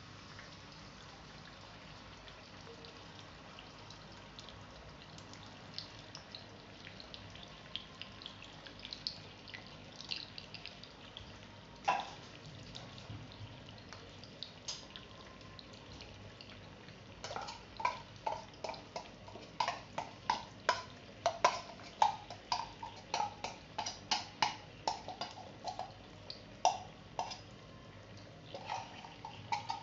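Condensed milk heating in a little cooking oil in a frying pan: wet pops as bubbles burst, a few scattered at first, then coming thick and fast, several a second, from a little past halfway.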